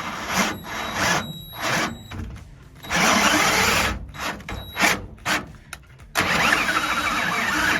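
Power drill turning a 5/8-11 thread tap, chasing bolt threads clogged with years of corrosion, paint and primer. It runs in a few short bursts, with longer runs starting about three and six seconds in.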